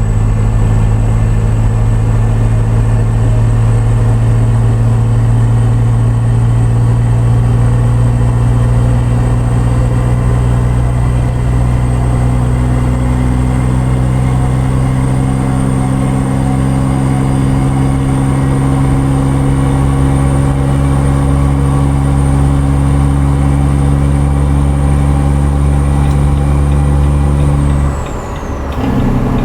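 Truck engine running steadily while driving. Near the end the engine sound dips briefly, then picks up again.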